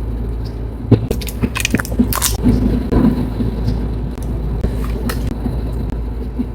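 Silicone 'fake water' slime being handled and squished, giving sharp clicks and crunchy crackles over a steady low rumble.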